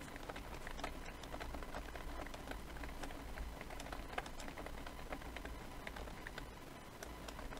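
Computer keyboard typing: a faint, uneven run of quick key clicks over a low steady hum.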